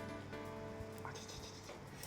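Soft background music with held notes.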